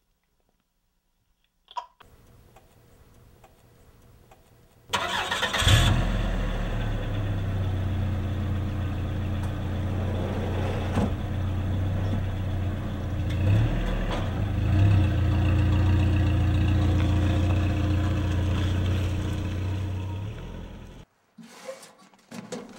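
A USPS mail delivery truck's engine comes in suddenly about five seconds in and runs steadily with a deep hum, then cuts off sharply near the end. Before it there is a single click and faint ambience.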